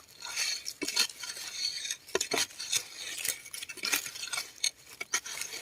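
Irregular scraping, clicking and rustling of hand work in dry soil and leaf litter, digging land snails out of an earth burrow.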